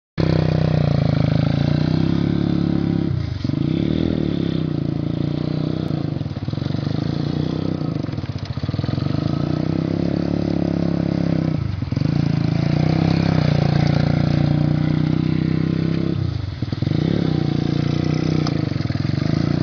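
150cc reverse trike's single-cylinder engine running steadily as it is ridden around. Its pitch and level dip briefly five times where the throttle is eased and then opened again.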